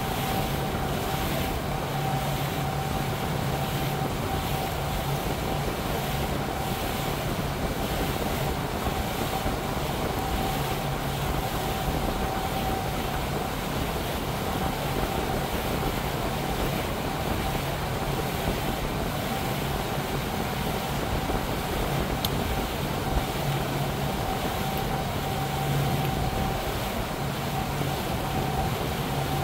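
Regal motorboat underway at a steady cruising speed: the engine drones evenly over the rush of water from the hull and wake.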